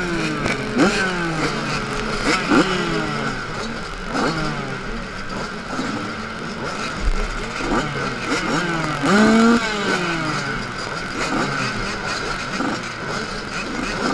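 Several motocross bikes, among them a Yamaha 85cc two-stroke, revving in short repeated throttle blips while held at the start gate, their engine notes rising and falling over one another. One louder rev comes about nine seconds in.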